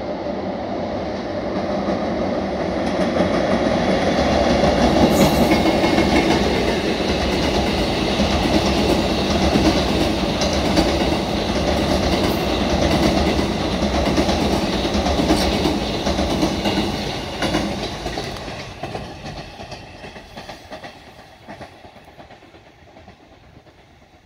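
EF81 electric locomotive towing an E531 series train across a steel girder bridge: a loud rumble of wheels with the clickety-clack of rail joints. It builds over the first few seconds, holds while the cars pass, and fades away over the last six seconds or so.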